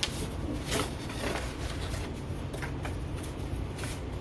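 Cardboard shelf being folded and handled: a scatter of short scrapes and taps over a steady low hum.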